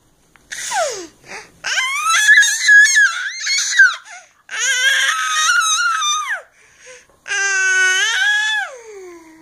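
Baby squealing in loud, high-pitched bursts: a short falling squeal, then three longer wavering ones, the last lower and sliding down in pitch at the end.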